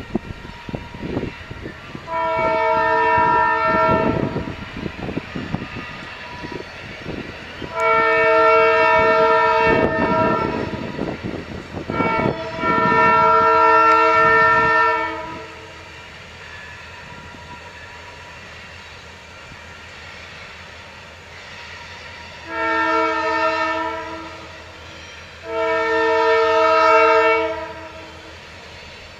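Train whistle blowing five chord-like blasts of several tones at once: three long ones in the first half, then after a pause two shorter ones near the end. Under the first three blasts runs the rumble of the moving train, dying away about halfway.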